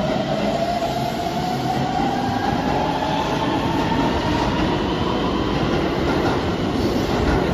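Keihan 3000 series electric train pulling out of an underground station. Its motor whine climbs slowly in pitch as it gathers speed, over a steady rumble of wheels on rail.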